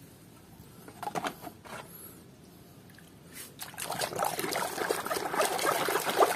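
A hand swishing and splashing water in a plastic tub while scrubbing a muddy toy: a few small splashes about a second in, then continuous sloshing and splashing from a little past halfway.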